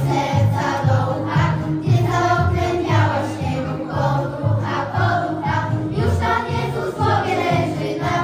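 Choir of young schoolgirls singing a Polish Christmas carol (kolęda) in unison, over a musical accompaniment with a low bass line that changes note in steps.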